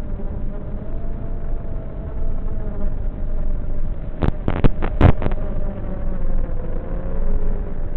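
A steady motor buzz whose pitch wavers slowly, dull and low-fidelity, with a quick cluster of sharp clicks or knocks about four to five seconds in.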